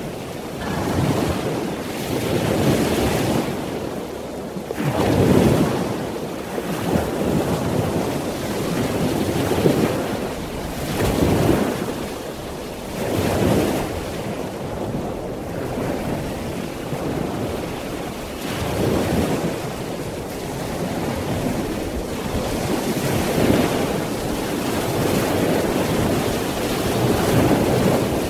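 Ocean surf: waves washing in and breaking, the sound swelling and ebbing every couple of seconds, as played on a sleep sound machine's 'Ocean Surf' setting.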